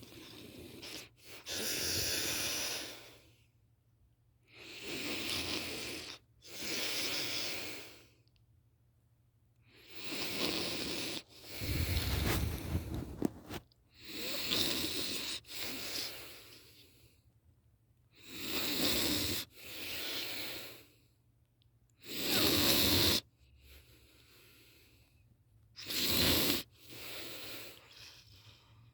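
A woman snoring really loud in her sleep: noisy snoring breaths of one to two seconds each, mostly coming in pairs, with quiet gaps of a second or two between.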